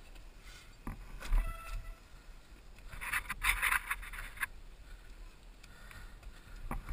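Mountain bike rolling over wooden ladder bridges and a slatted wooden berm: sharp knocks as the tyres hit the slats, then a burst of clattering about three seconds in. A steady deep rumble of wind runs under it on the helmet camera's microphone.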